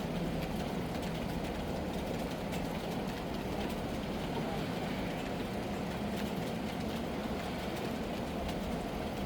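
Steady heavy rain with a deep, even rumble and scattered fine drop ticks, unbroken throughout.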